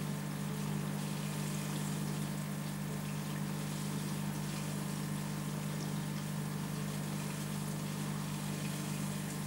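Aquarium pump running: a steady low hum with a faint, even watery hiss over it.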